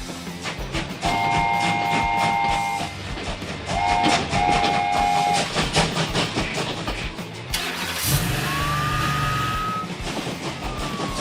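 Cartoon train sound effects: a train whistle of several notes at once blows twice, the second time after a short toot, over steady rhythmic clicking of wheels on track. Near the end a low hum sets in with a rising tone.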